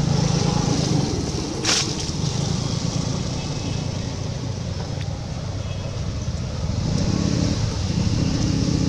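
A motor vehicle's engine running steadily nearby, with one short, sharp noise about a second and a half in.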